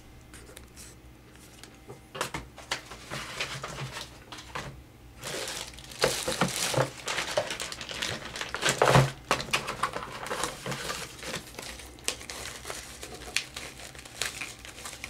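Plastic packaging crinkling and rustling as it is handled and unwrapped, in irregular bursts that are busiest in the middle, with a single knock about nine seconds in.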